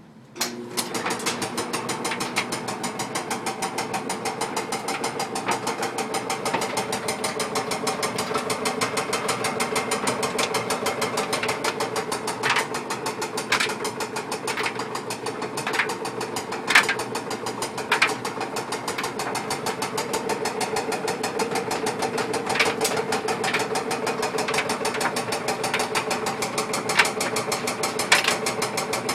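Whirlpool clothes dryer running with a rapid, steady ticking over its hum, broken by several louder clunks every few seconds, most of them in the second half. The sound comes on abruptly just after the start.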